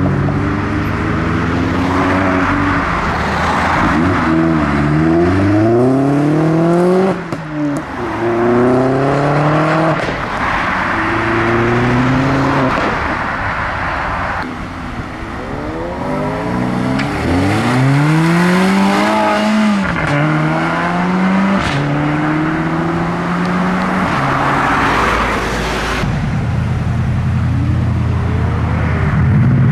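Several modified cars in turn accelerating away, their engine notes climbing and dropping back through gear changes; about two-thirds of the way through, one engine revs up and falls away.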